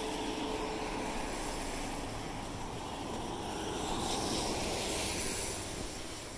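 Steady rush of road traffic noise, swelling briefly about four seconds in.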